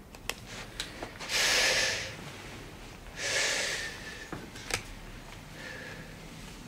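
A person breathing out heavily twice, each breath lasting under a second, with a few light clicks of small objects being handled between them.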